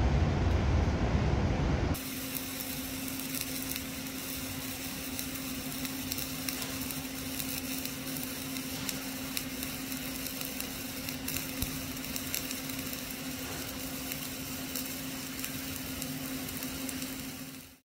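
A low rumble for about two seconds, then flux-cored arc welding: the arc crackling and sizzling steadily over a steady low hum, fading out just before the end.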